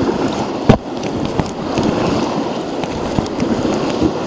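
Rushing whitewater rapids, a steady loud rush of water with scattered sharp taps and one hard knock about a second in.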